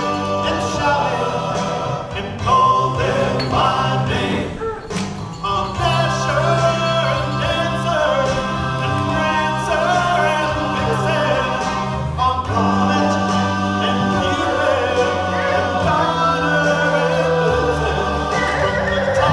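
Background music: a song with several voices singing over instrumental backing and a sustained bass line.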